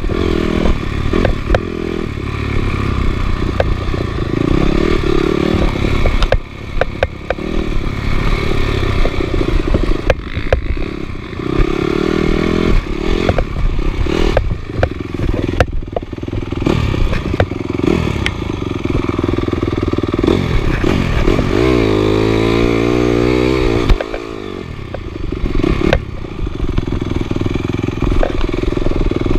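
Off-road motorcycle engine running and revving up and down, with frequent knocks and rattles, as in riding over rough ground. One clear rev rises and falls near the end.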